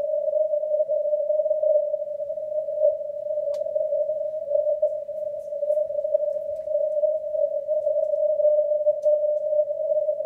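Shortwave receiver's audio in CW mode on the 160 m band: static and band noise squeezed through a narrow filter into a rough, wavering hiss-tone around 600 Hz, with a couple of faint crackles.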